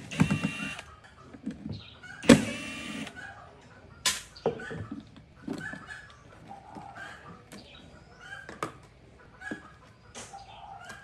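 Cordless impact driver running in two short bursts while backing screws out of a speaker cabinet's terminal plate. Light clicks and knocks follow as the plate and its wires are handled.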